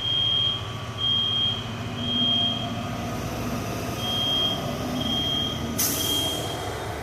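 Smoke alarm sounding the three-beep fire-alarm pattern: three high beeps about a second apart, a pause, then three more, over the steady low running of a fire truck's engine. A short sharp hiss cuts in a little before the end.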